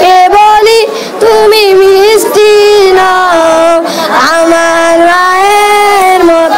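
A boy singing a Bengali gojol (Islamic devotional song) solo into a handheld microphone, his high child's voice bending through ornamented runs before holding one long, steady note for about two seconds near the end.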